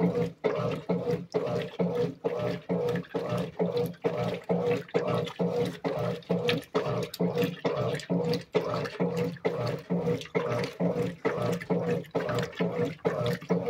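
Washing machine running its wash cycle: a steady motor hum with a regular swishing stroke about three times a second as the load is agitated in water.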